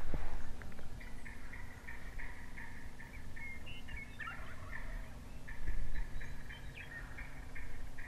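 Wild turkey calling: two runs of quick, evenly spaced high notes, the first starting about a second in and the second in the latter half, with a few gliding notes between them.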